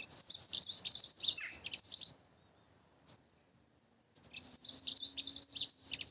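Dunnock singing: two quick, high warbling song phrases of about two seconds each, with a pause of about two seconds between them.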